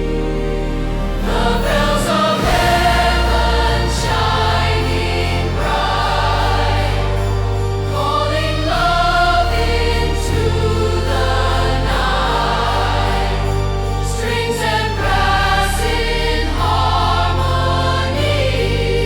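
Slow orchestral Christmas piece: a choir sings over sustained low chords that change about every two seconds.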